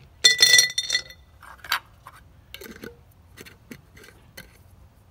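Quartz stones rattling and clinking against a small glass jar as they are handled, with a loud ringing glass clink about a quarter second in. Lighter scattered clicks and knocks follow.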